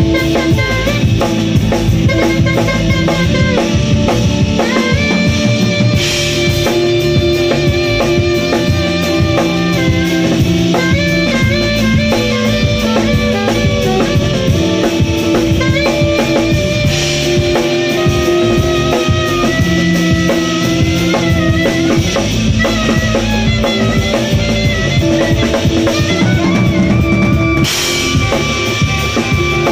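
Live jazz band playing: melodic lines from an alto saxophone over electric bass and drum kit. Cymbal crashes come three times, about ten seconds apart.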